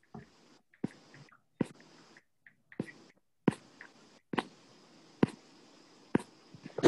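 A series of sharp clicks or taps, about eight, roughly one every second, over a faint steady hiss from an open microphone on a video call.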